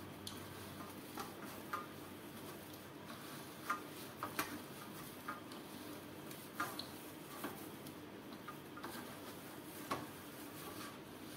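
Hands kneading a stiff sabudana-and-potato dough in a stainless steel bowl: irregular light clicks and knocks on the steel, some with a short metallic ring, over a faint steady background.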